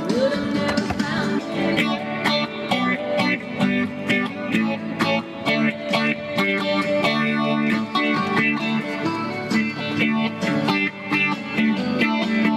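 Electric guitar, a Steinberger, played through a small amp: plucked notes and strummed chords, with string bends near the start.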